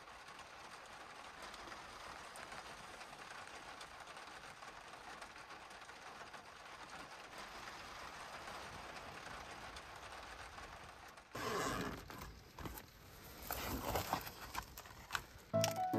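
Faint steady hiss, then about 11 seconds in a soft insulated cooler bag is handled and opened, its foil-lined flap and the plastic-wrapped frozen gyoza packet inside rustling and crinkling in irregular bursts. Music starts just before the end.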